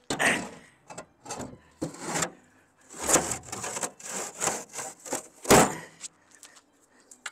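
Basalt flagstone slabs being shifted in the steel bed of a tracked power carrier: a run of rough scraping and grating strokes as stone slides over stone and metal, with one heavy knock about five and a half seconds in.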